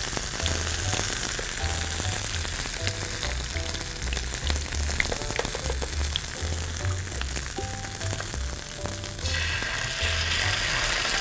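Hot cast-iron skillet of browned beef bones sizzling and crackling as tomato paste is spooned onto them, an early step of a brown beef stock.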